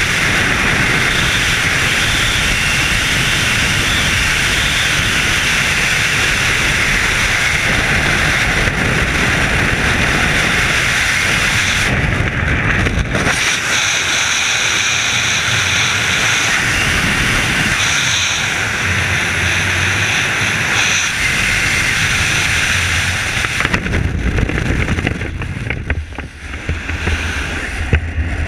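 Freefall wind rushing over the camera's microphone in a steady, loud noise. Near the end the rush drops off and turns gusty as the parachute canopy opens.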